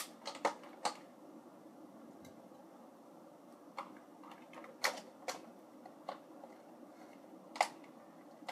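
Scattered sharp clicks and crackles of plastic toy packaging being handled as a figure's coin accessory is worked out of it: a quick cluster at the start, then a few single clicks spaced a second or more apart.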